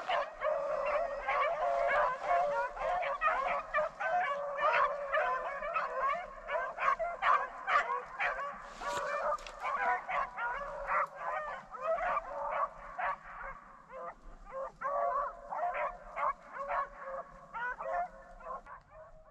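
A pack of rabbit-hunting dogs baying as they run a rabbit's trail. Several dogs' cries overlap in quick repeated calls, growing somewhat fainter in the last few seconds. The baying is the sign that the dogs are on the rabbit's scent.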